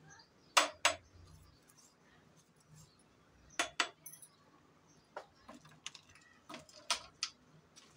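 Steel spoon clinking against tall drinking glasses filled with ice, in a few light clinks, two pairs and then several single ones near the end.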